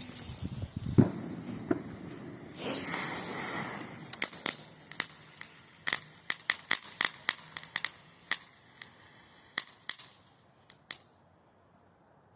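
Small consumer firework going off: a hissing spray, then a long run of sharp pops and crackles, irregular and about two or three a second, thinning out and fading near the end.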